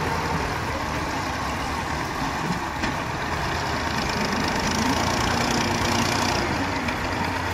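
Massey Ferguson 240 tractor's three-cylinder diesel engine running as it pulls a trolley loaded with earth. It gets a little louder about halfway through.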